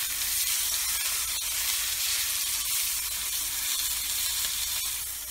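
Beef chuck roast searing in a very hot pan: a steady sizzle with faint scattered pops as its edges brown.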